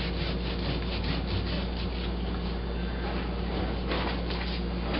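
Kitchen knife sawing back and forth through raw pork shoulder on a foam tray, scoring the meat with quick scraping strokes that ease off briefly and pick up again near the end. A steady low hum runs underneath.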